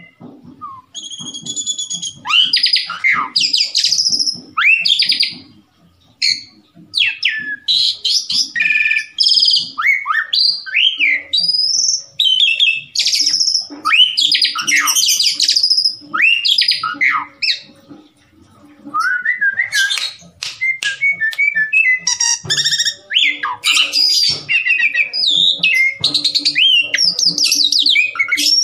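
Asian pied starling (jalak suren) singing vigorously: a long, varied run of loud whistles, rising and falling glides, squawks and chattering notes, with brief pauses about six seconds in and again about eighteen seconds in.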